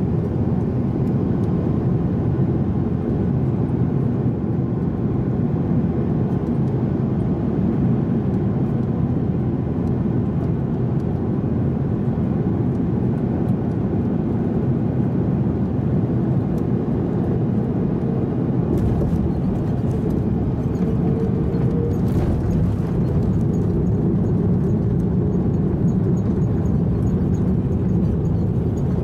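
Airbus A330-300 airliner heard from inside the cabin during landing: a steady, loud rumble of engines and rushing air. About two-thirds of the way through, the rumble grows deeper and a hiss spreads higher.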